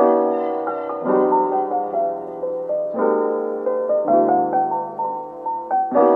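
Background music: a soft, melodic piano tune with notes held and changing in phrases.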